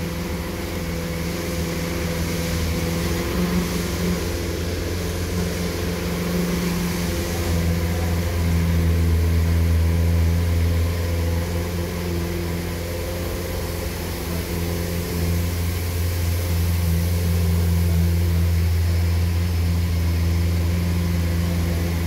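Steady low mechanical hum with a deep drone, swelling slightly twice.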